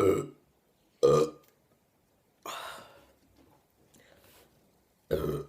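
A woman burping loudly after drinking carbonated Sprite: several short, deep belches, one at the start, one about a second in and one near the end, with a longer, breathier one in between.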